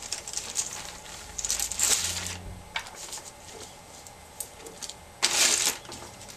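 A hand rummaging through a clear plastic bag of small seashells: the plastic crinkles in two short bursts, about a second and a half in and again near the end, with light clicks of shells between.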